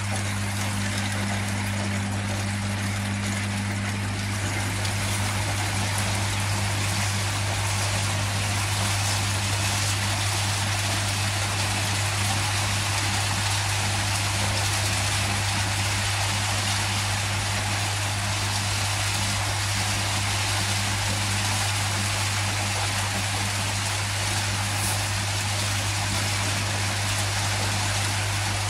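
Aeration air pump humming steadily while air bubbles up through the koi pond filter chambers, the bubbling building up over the first several seconds and then running evenly.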